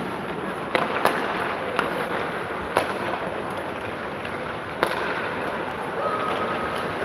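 Ice hockey play: about five sharp, irregularly spaced clacks of sticks and puck striking in a reverberant rink, over a steady hiss of skating and arena noise.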